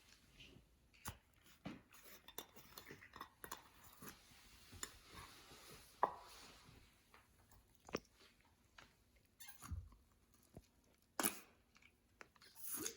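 Slime being worked, making irregular soft sticky clicks, pops and squelches.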